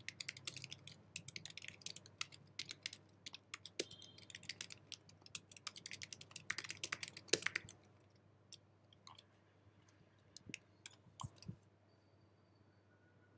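Fast typing on an Apple keyboard: a quick, uneven run of key clicks. It stops about eight seconds in, leaving a few scattered clicks.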